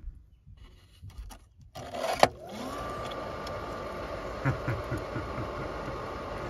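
Condensate pump switching on with a sharp click about two seconds in, its motor spinning up in a quick rising whine and then running steadily, with a few low knocks around halfway. This is the pump whose open drain (overflow) switch was suspected of cutting the heat pump's 24-volt control power.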